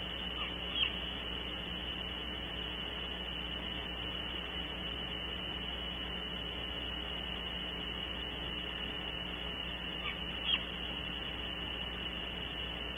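Great horned owlets giving short, high chirping calls, one pair near the start and another pair near the end. A steady high-pitched tone with hiss runs underneath.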